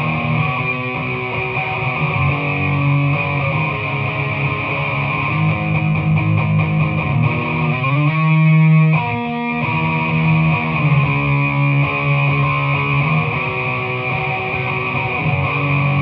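A Squier Stratocaster electric guitar played through a Peavey ValveKing valve amp, with sustained notes and chords. A note is bent upward about eight seconds in.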